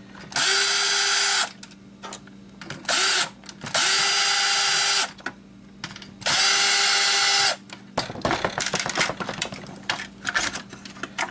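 Cordless drill/driver backing screws out of a PlayStation 2 power supply board. There are three runs of a bit over a second each, and the motor's whine rises briefly at the start of each, with a short blip between the first two. From about 8 s the drill stops and there is a run of clicking and rattling as the board and its perforated sheet-metal shield are handled.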